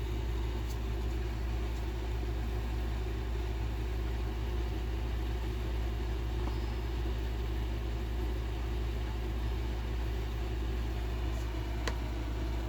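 Steady low hum with a faint click near the end.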